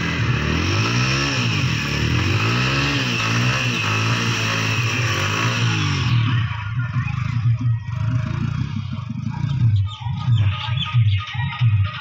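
Yamaha R15 V4's single-cylinder engine revved up and down again and again while the rear tyre spins in a muddy puddle, with a steady hiss of spraying mud and water. About halfway through the spray hiss stops suddenly and the engine note turns uneven and choppy.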